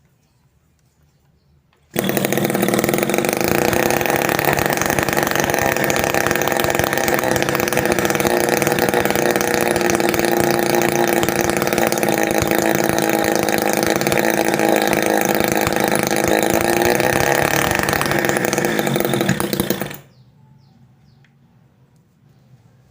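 Small homemade two-stroke engine, built from a refrigerator compressor, running at a steady high speed. It comes in suddenly about two seconds in and cuts off sharply near the end.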